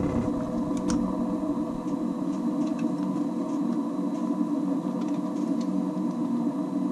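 A steady hum made of several fixed tones, with a few faint clicks of handling.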